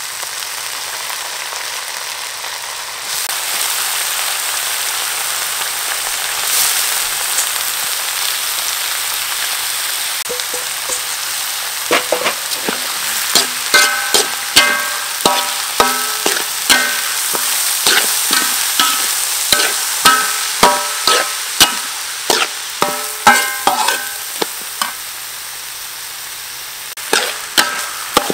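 Cooked rice sizzling in hot oil in a steel wok. From a little before halfway, a metal spatula stirs and strikes the wok about twice a second, each stroke ringing, with a brief lull near the end.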